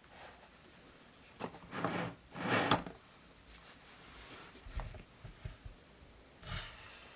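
Stationery being handled on a desk while a diary is decorated: several short rustles, the longest about two and a half seconds in, and a few light knocks a little before the end.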